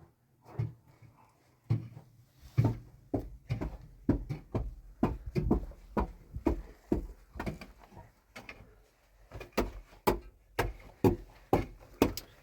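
A series of dull, sharp knocks, about two a second, from repeated blows while building a shelter. They ease off for a moment about eight seconds in, then resume.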